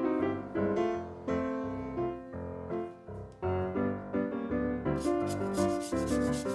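Background piano music. From about five seconds in, the quick repeated rasping strokes of a lemon being grated on a metal hand grater join it.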